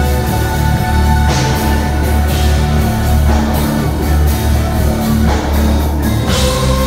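Live rock band playing loud, with heavy sustained bass, held synth-like tones, and a drum kit with several cymbal crashes.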